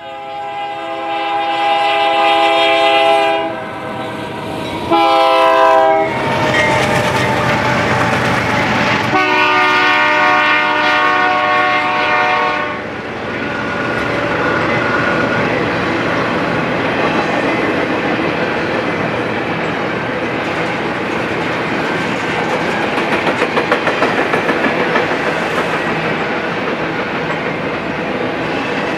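BNSF freight locomotive air horn sounding three multi-tone blasts as the train approaches: a long one, a short one, then another long one. After that comes the steady rumble and clatter of a double-stack intermodal container train's wheels rolling past on the rails.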